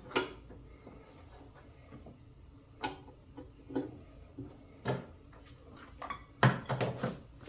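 Scattered clicks and light knocks as a bottle-filling machine and its power cord are handled on a wooden table, with a quicker cluster of knocks near the end.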